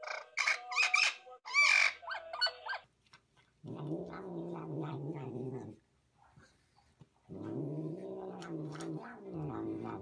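A few short high whistling calls with a bending pitch, ending about three seconds in. Then a tortoiseshell cat eating from its bowl makes two long, low drawn-out moaning calls, each about two seconds, with a pause between them.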